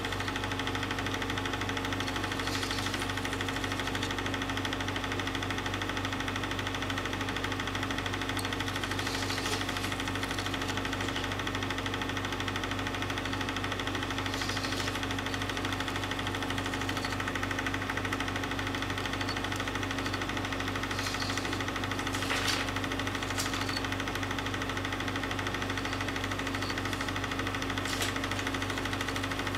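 Film projector running: a steady mechanical hum at one unchanging pitch, with a few faint clicks, the clearest a little over 22 seconds in.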